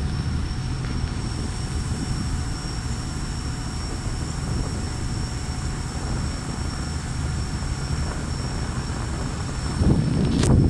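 Steady low drone of a car ferry's engines under way, with a faint high whine held through it. A single sharp click near the end.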